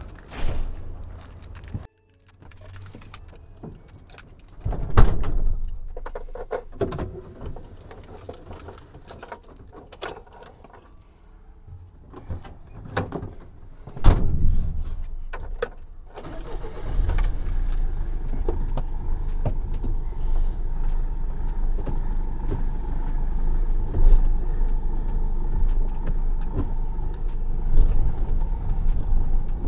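Keys jangling with scattered clicks and knocks, then a heavy thump about halfway through. After that, a vehicle engine runs with a steady low rumble.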